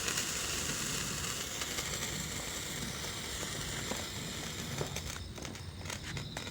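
A spark-spraying firework burning with a steady hiss and light crackle, dying out about five seconds in.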